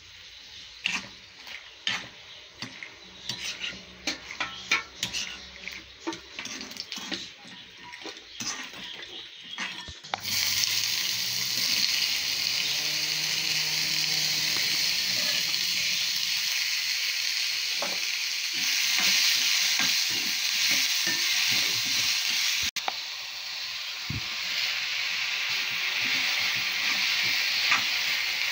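A steel spoon scraping and stirring dry red chillies and garlic in a little oil in a cast-iron kadai, a scatter of clicks and scrapes. About ten seconds in, sliced onions go into the hot oil and a loud, steady sizzle starts and carries on as they are stirred.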